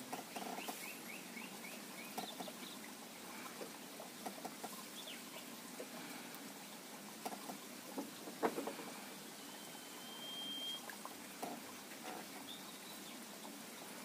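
Faint outdoor background with a few short bird calls: a quick run of chirps at the start, then one held whistle about ten seconds in. Scattered light clicks and taps, the loudest a sharp tap about eight and a half seconds in.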